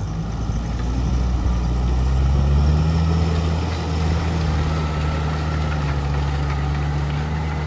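Old tractor engine running under load as it pulls a plough; it grows louder and its note rises a little over the first few seconds, then holds steady.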